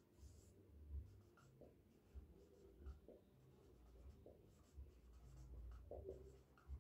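Faint scratching and squeaking of a marker pen writing on a whiteboard, in short strokes.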